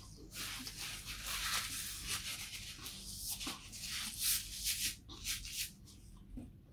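Paper napkin rustling and crinkling as it is handled and wiped across the mouth.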